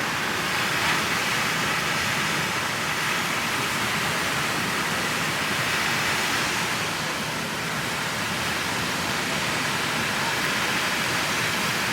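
Ocean surf making a steady, even rushing hiss with no distinct wave breaks.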